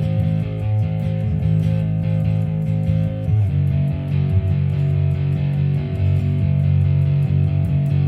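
Bass guitar played through a Fender Rumble LT25 bass combo amp: low held notes, shifting to a new note about three and a half seconds in, with a fast light ticking above them.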